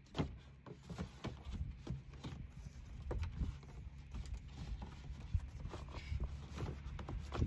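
A stiff paper shopping bag and a corrugated cardboard box being handled: scattered rustles, crinkles and light knocks at irregular moments, over a low steady rumble.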